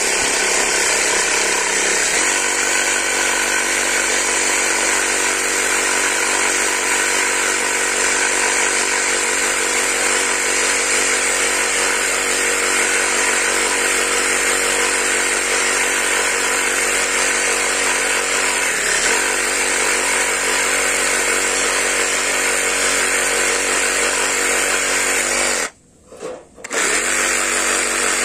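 Cordless electric saw running steadily while cutting through a piece of wood. It stops for about a second near the end, then starts up again.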